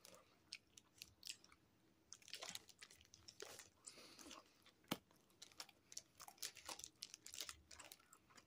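Faint close-up chewing of a soft beef and bean burrito: scattered wet mouth clicks and smacks, with one sharper click about five seconds in.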